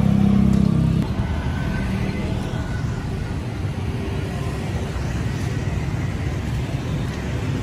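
Street traffic: a motor vehicle's engine hum, loudest for the first second, then dropping to a steady low traffic rumble.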